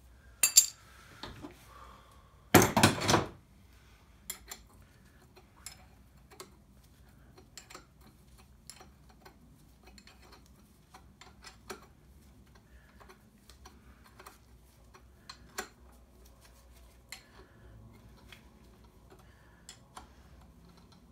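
Steel tools and bolts clinking and tapping against metal while bolts are fitted through a makeshift harmonic balancer puller. There are two sharp clacks about half a second in, a louder rattling clatter about three seconds in, then scattered light metal taps.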